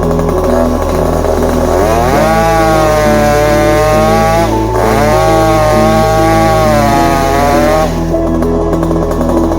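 Gas chainsaw cutting, its pitch sagging under load and rising again twice, with background music over it.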